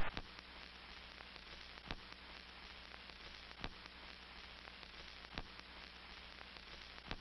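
Faint steady hiss with a low hum, and a soft click about every second and three-quarters.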